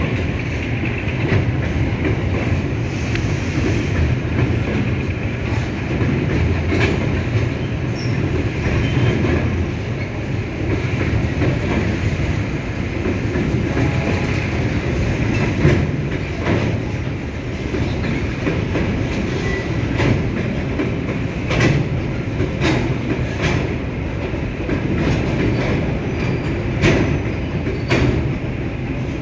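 Freight train cars rolling steadily past, their wheels clacking irregularly over rail joints, with a continuous rumble of wheels on rails.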